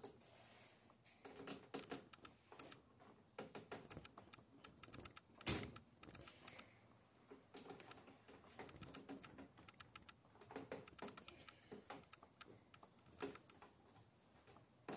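Irregular small clicks and rattles of dirt-bike brake parts being handled and worked into place, with a single louder knock about five and a half seconds in.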